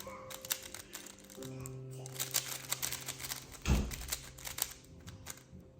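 Rapid plastic clicking and clacking of a 3x3 Rubik's cube being turned, over soft background music with long held notes. There is a dull thump about two-thirds of the way through.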